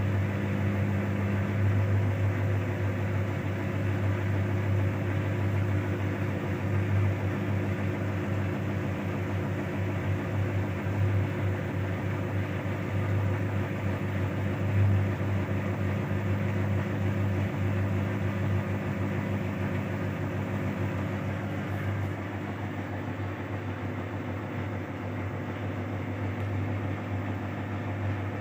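Whirlpool FSCR90425 washing machine spinning at 400 rpm with an unbalanced load: a steady, loud motor and drum hum that eases a little near the end.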